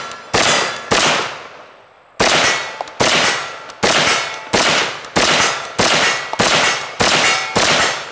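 Auto Ordnance M1 Carbine Paratrooper firing .30 Carbine in steady semi-automatic shots, about one and a half a second, with a short pause after the first two. Steel targets ring on hits.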